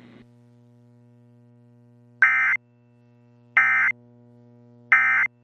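EAS/SAME end-of-message data bursts: three short, shrill digital warbling bursts about a second and a half apart, signalling that the alert has ended. A faint steady low hum runs underneath.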